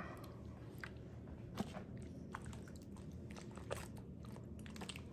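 Faint wet squelching and a few light, sharp clicks as hands move pieces of marinated pork around in a metal tray.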